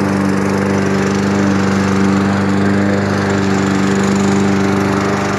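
Walk-behind rotary lawn mower's small single-cylinder engine running steadily at constant speed, with fogging solution fed into its exhaust to make mosquito fog.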